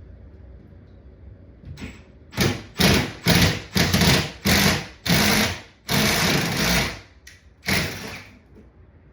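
Power drill with a long bit boring into a wooden floor joist at an angle, run in a series of short bursts starting about two seconds in, with a couple of longer runs in the middle, to enlarge an existing hole.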